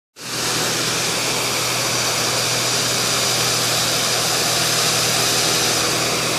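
Steady rushing of a small waterfall pouring into a pond, with a faint steady low hum underneath.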